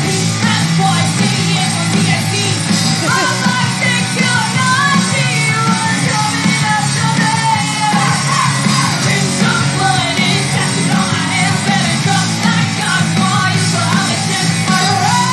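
Live recording of a punk-like rock song: electric guitar, bass guitar and drums under a woman's sung lead vocal.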